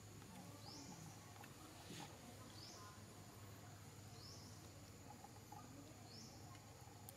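Near silence: quiet outdoor ambience with a faint high, rising chirp repeating about every one and a half seconds over a faint steady high tone.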